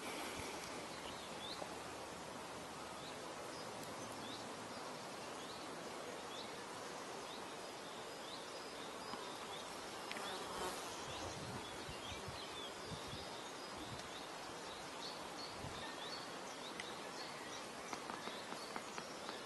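Flies buzzing around at a steady level, with faint short high chirps repeating about once a second behind them.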